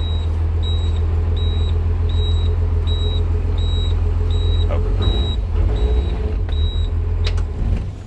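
A 1997 Blue Bird TC2000 school bus's 5.9 Cummins diesel idling, with a high warning beeper sounding about one and a half times a second over it. The beeping stops near the end, and the engine dies away just after.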